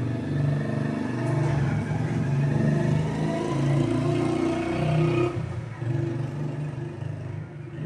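A motor vehicle's engine running close by, with a steady low hum that eases off after about five seconds.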